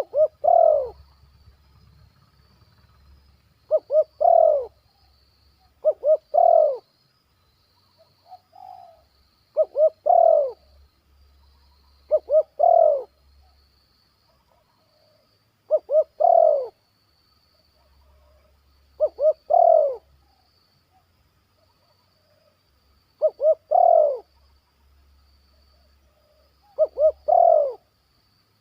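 Spotted dove (tekukur) cooing its song over and over, about nine times at intervals of two to four seconds: each call is two short notes run into a longer coo that rises and falls.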